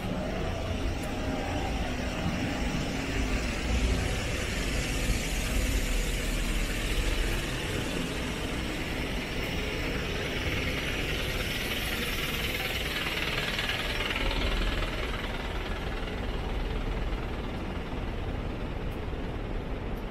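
Street traffic: a steady vehicle rumble, with a vehicle passing by more loudly about halfway through.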